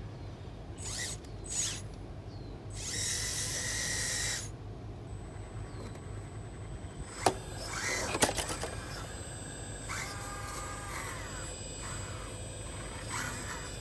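Small electric motors and gearing of a 1/14-scale RC EC360 excavator whirring in short bursts as its upper body swings around, with two sharp clicks about halfway through.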